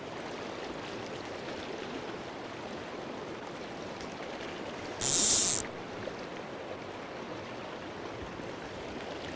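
Shallow river riffle running steadily over stones, with one brief, loud hiss about five seconds in.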